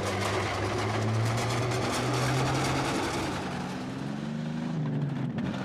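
Heavy armoured fighting vehicle's engine running, its pitch shifting up and down, with a fast clatter over it during the first few seconds. The sound breaks off briefly near the end.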